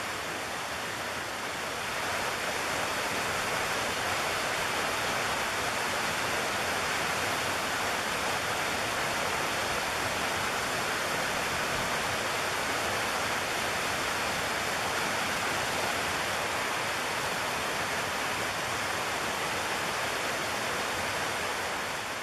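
Shallow river water rushing steadily over stones, a little louder from about two seconds in.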